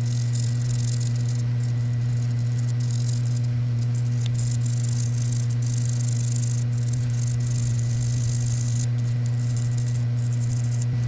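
Hand wire brush scrubbing rust from the joint of small needle nose pliers: a scratchy, rasping sound that keeps stopping and starting. Under it runs a loud, steady low electrical hum.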